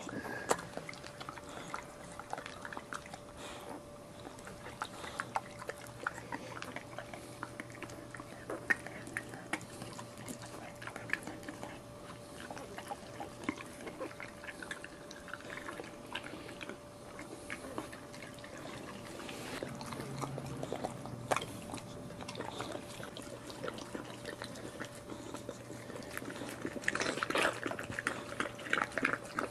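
A boxer bitch licking a newborn puppy in its birth sac: a continuous run of short, wet licking and lapping clicks that grows busier and louder near the end as she works the membranes off.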